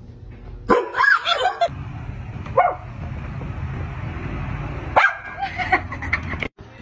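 Short sharp barks: a burst about a second in, a single one near three seconds, and a quick run of them from about five seconds, over a steady hiss.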